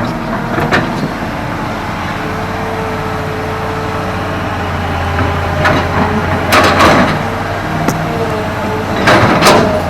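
Hydraulic excavator's diesel engine running steadily, with several loud knocks and clanks from the machine as it works.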